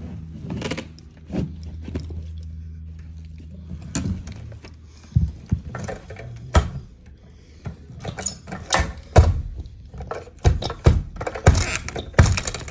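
Carpet power stretcher being set and worked against a wall: a low steady hum for the first few seconds, then a run of sharp knocks and metal clacks from the stretcher's head and lever.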